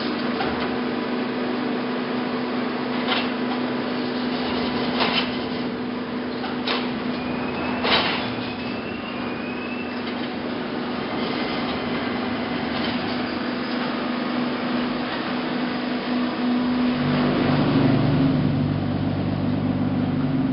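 Concrete block production line machinery running, with its hydraulic stone clamp and pallet conveyors: a steady hum broken by several metal clanks, the loudest about eight seconds in, followed by a short faint rising squeal. Near the end a deeper motor drone comes in and grows louder.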